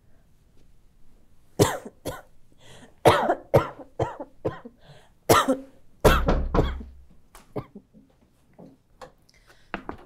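A woman coughing in repeated hard fits, a string of sharp coughs starting about a second and a half in. About six seconds in, knocks on a door come in among the coughs.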